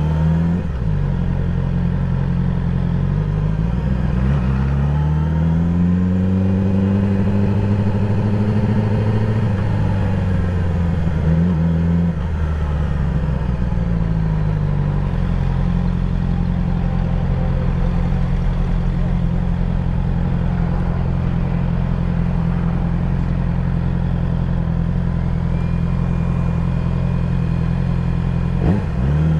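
2020 Yamaha YZF-R6's inline-four engine running at low speed in slow traffic. Its pitch rises a few seconds in, holds, drops back, then stays steady, with a quick short rev near the end.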